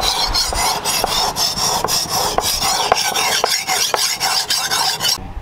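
Steel cleaver blade, forged from leaf spring, rubbed back and forth on a whetstone in rapid scraping strokes, about three to four a second. The sharpening stops abruptly shortly before the end.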